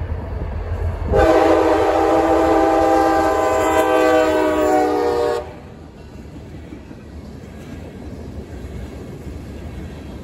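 Freight diesel locomotive's air horn sounding one long blast of several notes at once, starting about a second in and cutting off after about four seconds, for the road crossing it is reaching. Then the lower steady rumble of freight cars rolling past.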